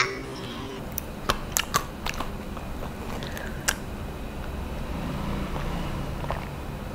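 Drinking from a stainless steel bowl: a few sharp clicks in the first couple of seconds, then soft sipping and swallowing over a low steady hum.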